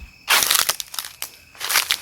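Two crunching footsteps on dry ground, about a second and a half apart, with crickets chirping steadily behind.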